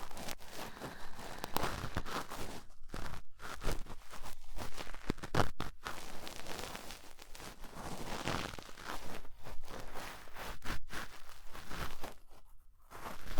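Cotton swab rubbing and scratching in the silicone ear of a 3Dio binaural microphone: close, irregular crackly scraping strokes with a few short pauses.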